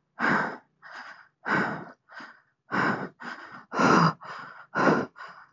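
A person's heavy, fast breathing close to the microphone: five loud breaths about a second apart, each followed by a softer one. It is the rider's frightened breathing on a steep dirt road.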